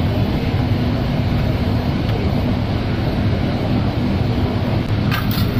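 A steady low mechanical rumble with a faint hum, with a few sharp clinks of cookware about five seconds in.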